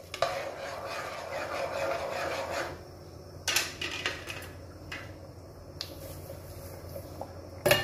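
Metal ladle scraping and stirring in a pot of boiling water as semolina is stirred in, a steady scratchy sound for the first couple of seconds, then a few sharp knocks.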